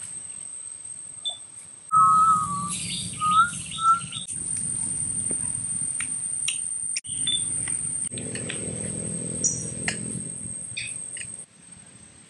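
Forest ambience: a bird chirps a few short wavering notes about two seconds in, over a steady high thin whine and a low rumble. Scattered small clicks are heard, and the background changes abruptly several times.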